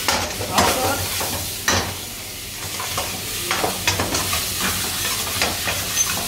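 Meat frying and sizzling in a hot wok on a gas burner while a steel ladle stirs it, scraping and knocking against the pan several times.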